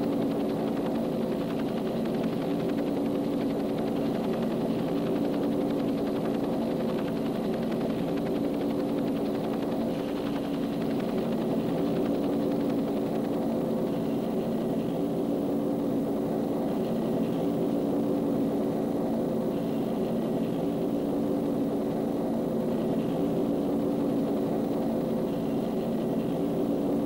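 Steady drone of a Bell UH-1 Huey helicopter's turbine and rotor drive heard from inside the cockpit, holding an even pitch and level throughout.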